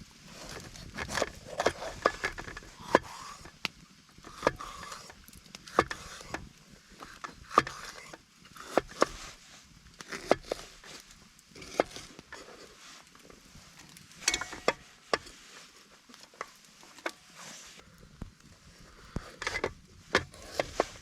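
Irregular knocks, clicks and scrapes of cooking gear and ingredients being handled during food prep, with a few loud sharp taps among them.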